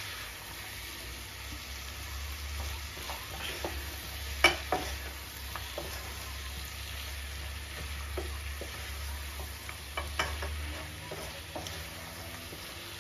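Beef stew meat with peppers and curry powder sizzling in a pot while a wooden spoon stirs it, with scattered knocks of the spoon against the pot, the sharpest about four and a half seconds in.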